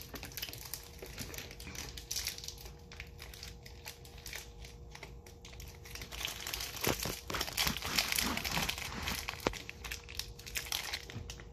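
Plastic wrappers of chocolate cookie bars crinkling and tearing as they are opened and handled, the crackling getting busier and louder over the second half.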